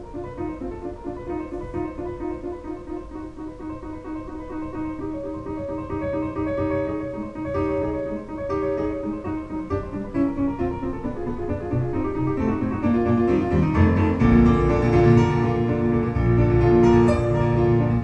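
Piano music played back over a hi-fi stereo system through loudspeakers. It swells louder, with fuller low notes, over the last few seconds.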